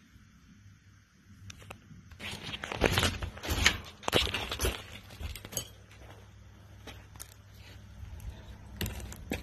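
Footsteps crunching and clattering over broken wooden boards and plaster rubble, densest for a few seconds starting about two seconds in, with a few sharp cracks near the end.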